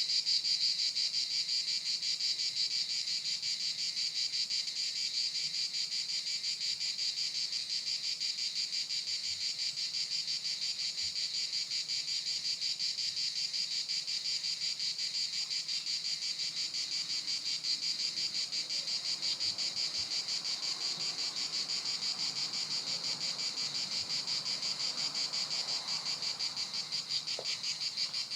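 A chorus of cicadas buzzing steadily: a high, rapidly pulsing drone that holds even throughout.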